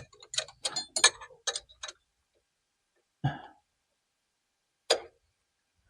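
Hand tools clicking and clinking: a quick irregular run of light metallic clicks for about two seconds, then a single knock and, a little later, one more sharp click.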